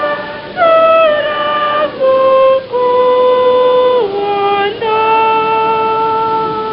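Slow worship music: a single high melody of long held notes that slide from one pitch to the next, the last held about two seconds.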